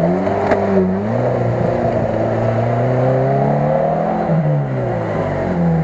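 Daihatsu Feroza's engine revving under load as it pulls out of a muddy stream, pitch rising about a second in, holding, dropping a little past four seconds and rising again near the end. Muddy water splashes off the front wheel at the start.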